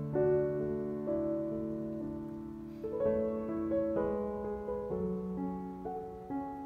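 Background piano music, slow notes and chords changing about once a second.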